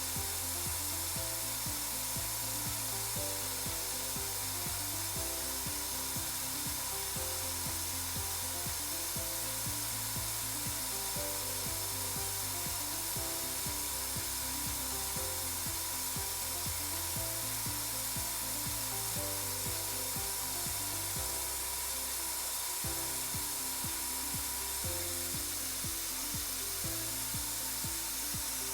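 Spin rinse dryer running steadily in its first dry cycle, its rotor spinning at 1800 RPM, with a steady hiss.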